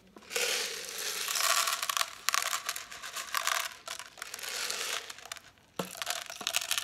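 Whole black peppercorns pouring from a jar into the empty body of a pepper grinder: a steady rattling hiss of small hard grains, with a couple of brief breaks. The pour stops about five and a half seconds in, followed by a knock and some handling.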